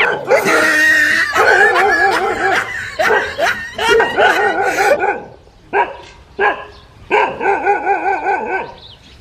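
A dog barking in quick runs of short barks. The barking is dense at first, thins to a few single barks after about five seconds, then picks up again in another quick run near the end.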